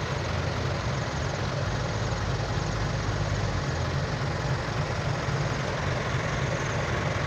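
Heavy engine running steadily: a constant low hum under an even rushing noise, with no change in speed.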